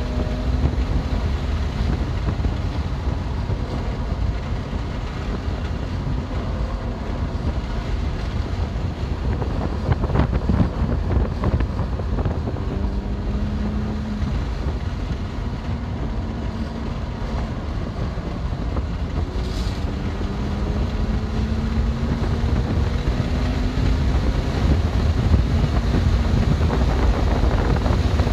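Heavy wind and road noise from a BMW M2 Competition at speed on track. The car's twin-turbo straight-six is faint underneath, its note climbing slowly through the second half. A short patch of jolts or knocks comes about ten seconds in.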